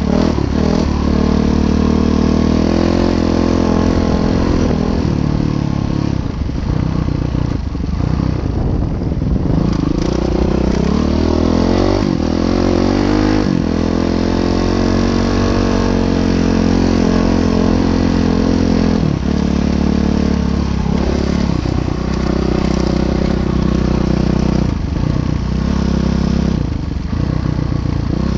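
Train passing: the diesel locomotive's engine runs loud and steady over a low rumble, its pitch shifting a little about halfway through.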